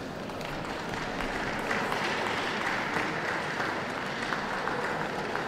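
Audience applauding, building over the first couple of seconds and then holding steady.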